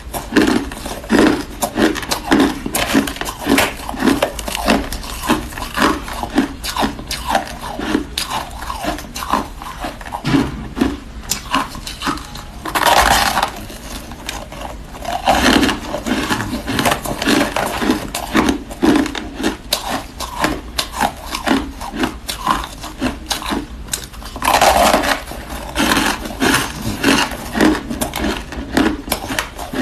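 Close-up chewing and crunching of flavoured shaved ice: a rapid, irregular run of crisp crunches, broken twice by a longer rasping crunch about thirteen and twenty-five seconds in.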